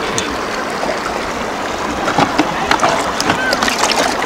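River water running over rocks, with splashing and sloshing as a plastic basin is dipped into the water and filled; the splashes come thickest in the second half.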